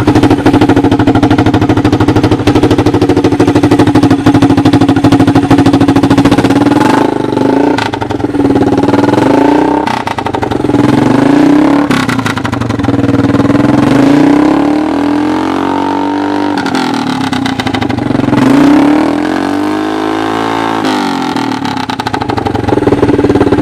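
1986 Honda TRX200SX ATV's single-cylinder four-stroke engine, mounted in a converted golf cart, running under way. Its revs hold steady at first, then rise and fall several times in the second half as the throttle is worked.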